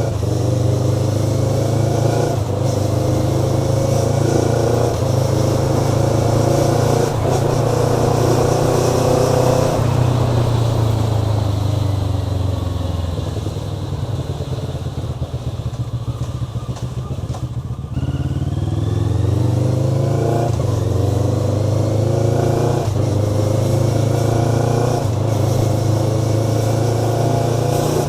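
Motorcycle engine accelerating hard through the gears, its note climbing and dropping back at each upshift about every two and a half seconds. After about ten seconds the throttle is closed and the note falls and quietens, with crackling from the exhaust on the overrun. Near the middle the bike pulls away again, shifting up through the gears the same way.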